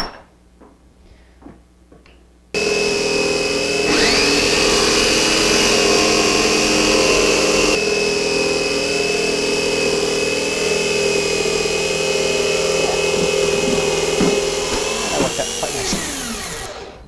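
Corded jigsaw cutting an opening in a board: the motor starts suddenly a couple of seconds in, runs steadily with a high whine through the cut, then winds down in falling pitch just before the end.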